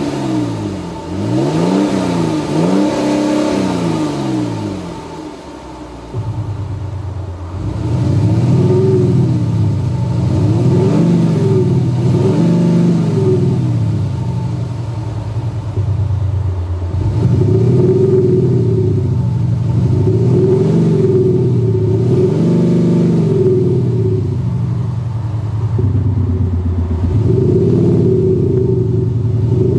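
Jeep Grand Cherokee engine revved again and again while standing, each rev rising and falling, with a Panthera LEO MAGNA Sound Booster active-exhaust speaker playing a synthetic Maserati-style exhaust note in step with the revs. From about six seconds in, a deeper, fuller drone joins the revs.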